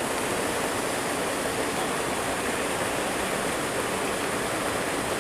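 River water rushing steadily, an even unbroken noise of flowing current.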